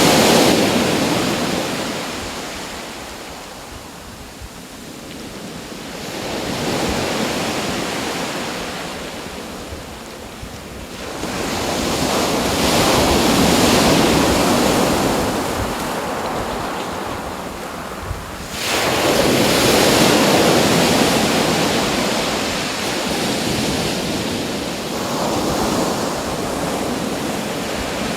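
Waves breaking and washing in, a steady rush of noise that swells and fades about every six to seven seconds; two of the swells arrive suddenly in the second half.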